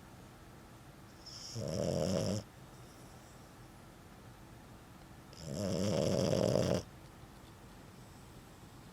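French bulldog snoring in her sleep: two loud snores about four seconds apart, the second one longer. She still snores like this despite surgery to widen her nostrils.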